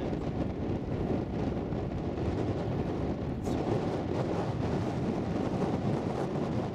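Wind buffeting the microphone: a steady, fluttering low rumble, with one brief click about three and a half seconds in.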